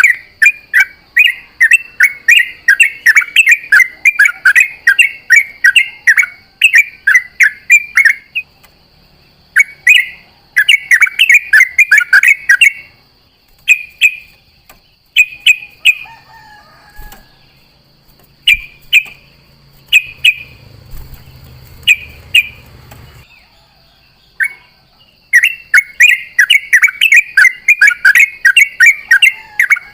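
Yellow-vented bulbul (trucuk) singing long runs of rapid, bubbly chattering phrases, broken into shorter phrases with pauses in the middle stretch, then rapid again near the end. A steady high-pitched hum runs underneath throughout.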